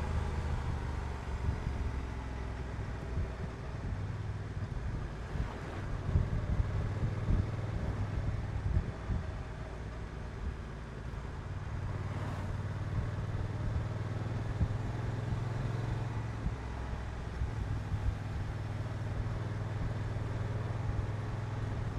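Honda NT1100's 1084 cc parallel-twin engine running under way at a fairly steady cruise, a low, even engine note with light road and air noise.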